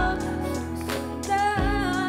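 A woman sings a held, wavering melody line over a band backing track, with a deep drum hit at the start and another about a second and a half in.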